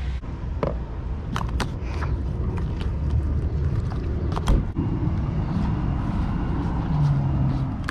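Hands working cleaning putty into a car's plastic interior door trim: scattered light clicks and taps, with one heavier knock about halfway through, over a steady low rumble.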